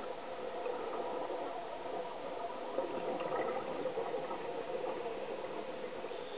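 Steady underwater noise picked up through a diving camera's housing, a dull rumbling hiss with slight bubbling.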